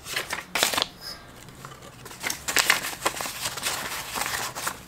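Paper banknotes rustling and crinkling as a small stack of bills is handled and counted: a short burst near the start, then a run of quick rustles from about two seconds in.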